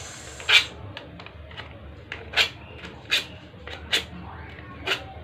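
Paper banknote crinkling and crackling as the fingers curl its edges, in a series of sharp crinkles roughly one a second.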